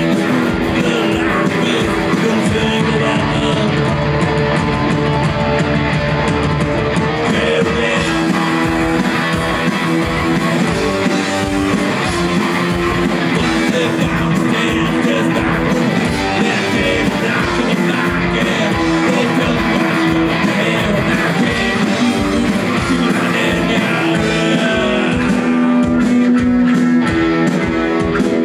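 Punk band playing live: electric guitars, bass and drums, with a steady kick-drum beat running through.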